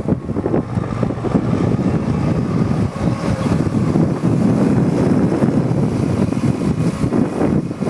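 Liebherr 914 Compact excavator's diesel engine running steadily, a rough low rumble, with wind noise on the microphone.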